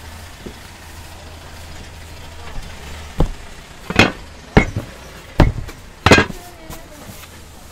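Five sharp knocks, about one every three-quarters of a second, over a steady low hum.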